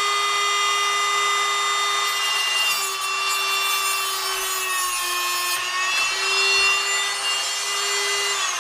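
Rotary tool with an abrasive cut-off wheel whining at high speed as it cuts through thin steel music wire, with a grinding hiss; the pitch sags twice in the middle as the wheel bites into the wire, then recovers.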